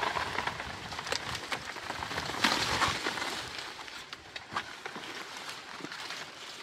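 Rustling and crackling of banana plant material being handled, with scattered snaps and a louder rustle about two and a half seconds in.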